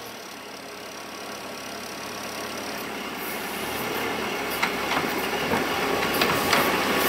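Compact wheel loader's diesel engine running as it drives, its bucket scraping manure along a concrete barn floor. The sound grows steadily louder, with scattered clicks and scrapes in the second half.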